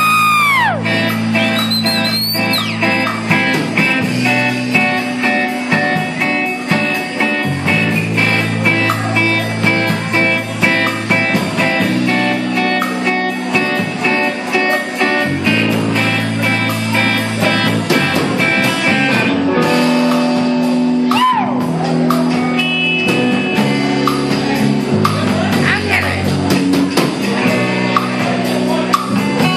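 A live rock band playing loudly, led by electric guitar over a steady bass line and drums.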